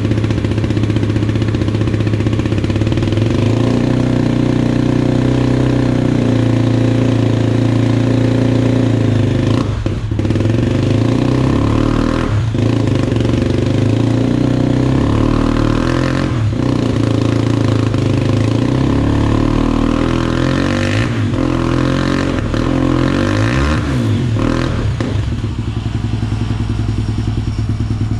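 Honda XR250 Tornado trail bike's single-cylinder four-stroke engine running on a stand, held at a steady idle and blipped up several times with the throttle in the second half.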